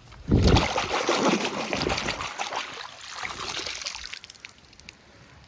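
Water poured over a toy, trickling and splashing as it rinses off soil. It starts abruptly just after the beginning, is loudest at first and fades away about four seconds in.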